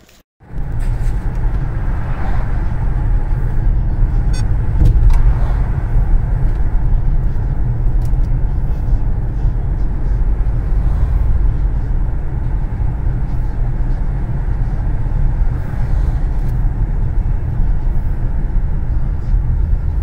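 Inside a moving car: steady low engine and road rumble, starting abruptly about half a second in after a brief gap.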